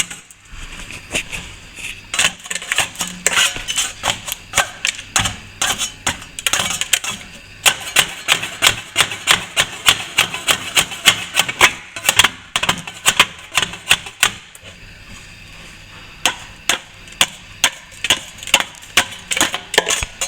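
Rapid, repeated sharp knocks and scrapes of a hand tool striking and prising loose plaster and old joint tape off a cracked wall-to-ceiling corner, about two to four strikes a second, pausing briefly about three-quarters of the way through.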